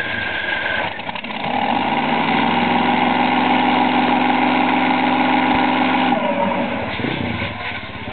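A Top Fuel dragster's supercharged V8 is being started. A high whine in the first second gives way to a steady mechanical hum from about one and a half seconds in, which winds down in pitch about six seconds in.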